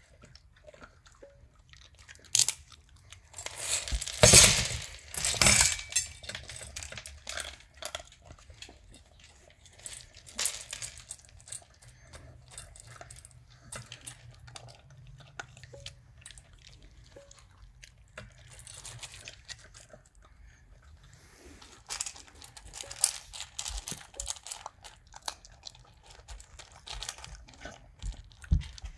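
A pet chewing and crunching pieces of dry dog kibble in irregular bites. The crunching is loudest in runs about four to six seconds in and again around twenty-two to twenty-four seconds.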